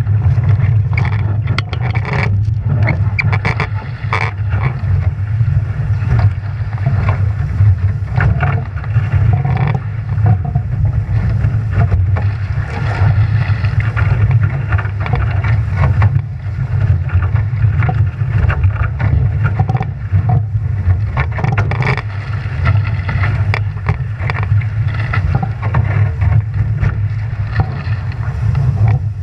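Heavy wind buffeting on the microphone with rushing water and frequent splashes of spray from a Nacra 17 racing catamaran under sail.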